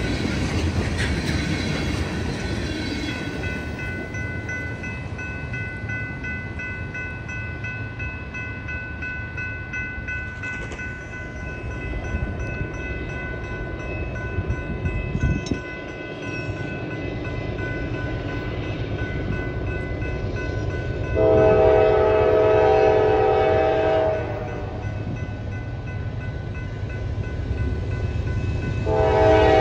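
Freight cars rumbling past over the rails, then an approaching freight locomotive sounding its multi-chime air horn: one long blast about three seconds long starting two-thirds of the way in, and another blast beginning near the end.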